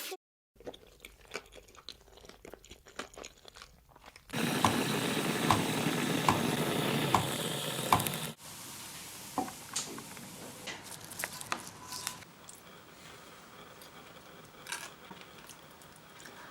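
Close-miked eating: chewing and crunching with small mouth clicks. About four seconds in, a much louder dense rustling noise starts and cuts off about four seconds later.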